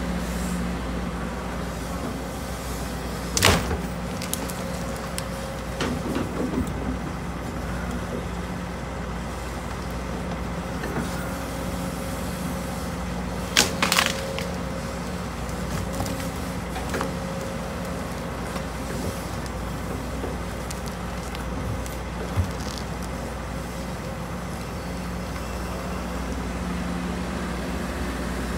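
Case CX210D excavator's diesel engine running steadily as the machine works, with sharp knocks from the bucket: one a few seconds in, a louder double knock around the middle as the bucket digs into the ground, and a few lighter ones.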